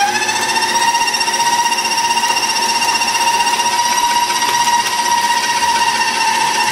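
Electric stand mixer whipping cheesecake batter, its motor whining high and steady. The pitch rises just at the start, then holds.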